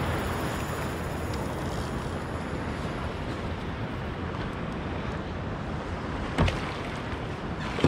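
Steady rush of wind and water noise on the microphone, with a single sharp knock about six and a half seconds in.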